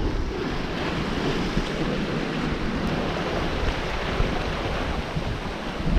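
Steady rush of wind and breaking waves around a sailing yacht running fast downwind in a fresh breeze of about 20 knots, with wind buffeting the microphone.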